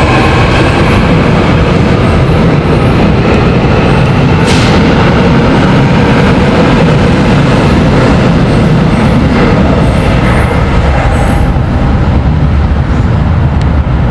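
Seoul Subway Line 7 electric train pulling out of the station past the platform, with a loud steady rumble of wheels and running gear on the track. A single sharp click comes about four and a half seconds in, and the sound eases slightly near the end as the last car moves away.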